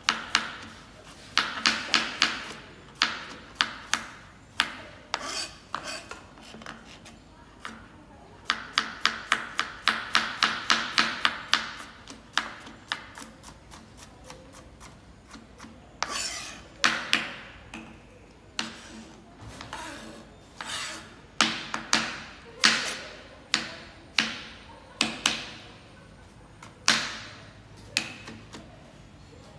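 Chef's knife chopping carrots on a plastic cutting board: quick runs of sharp knocks, about five a second, broken by slower single cuts.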